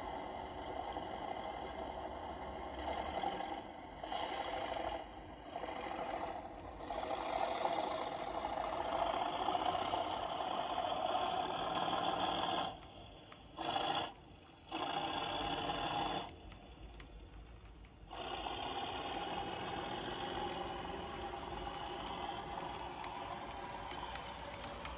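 OO gauge model train running on the layout: an Accurascale Class 37 locomotive hauling a rake of ballast wagons, a steady mechanical whirr and rattle of motor and wheels on track. The sound drops away briefly several times, most for a couple of seconds about two-thirds of the way through.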